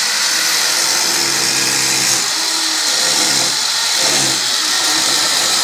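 Handheld electric power tool running continuously while working on a wooden interior door, a loud steady whirring hiss whose motor pitch wavers slightly under load.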